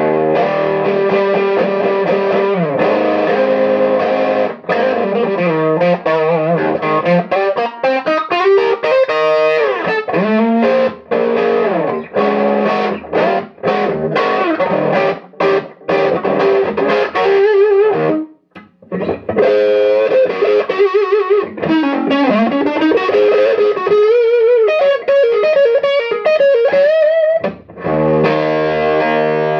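Overdriven electric guitar, a korina Gibson Futura played through a 1964 Marshall JTM45 'Bluesbreaker' combo with presence and mids turned up, heard through the amp's own Celestion G12 speaker. Chords and lead lines with string bends and vibrato, a short break about two-thirds of the way in, then a held chord near the end.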